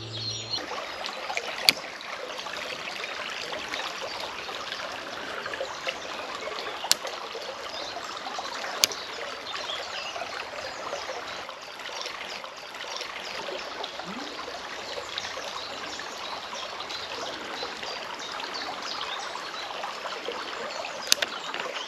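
Small brook babbling and trickling steadily, with four sharp clicks scattered through.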